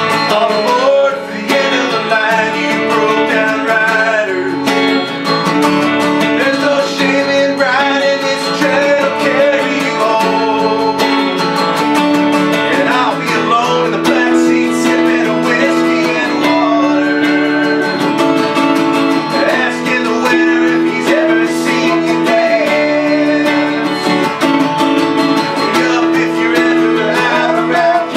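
Instrumental passage of a folk-rock song: an acoustic guitar strumming with a Telecaster-style electric guitar playing over it.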